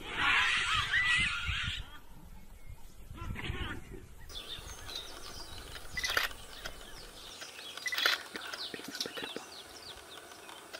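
Wild birds chirping and twittering in many quick, high, falling calls, after a loud rushing noise in the first two seconds. Two sharp clicks stand out about two seconds apart.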